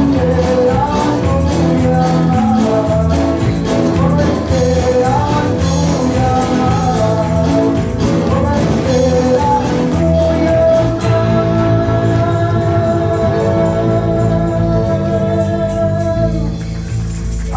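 Live gospel band playing a Spanish-language hymn on electric guitars, bass guitar, keyboard and drums, with a man singing. The song ends on one long held note from about ten seconds in.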